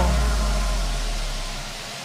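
The last low bass note of an electronic dance track dying away, over a steady hiss.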